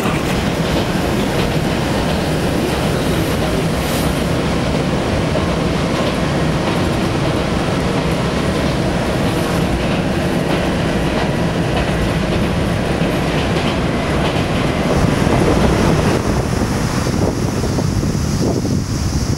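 Train running along the rails, heard from inside the carriage: a steady rumble with wheel clatter. Near the end it gives way to waves washing on a beach and wind on the microphone.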